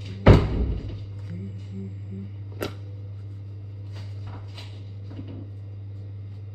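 A single heavy thump about a third of a second in, then a sharp click about two and a half seconds in, over a steady low hum.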